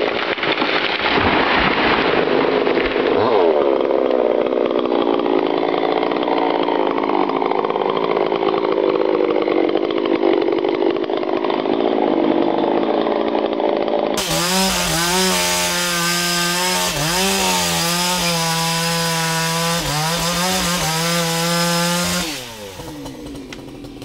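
Chainsaws running at high revs. For the first part the sound is dense and hissy. After a sudden change about 14 seconds in, a single saw holds a steady high engine note with a few quick dips in throttle, then drops back toward idle near the end.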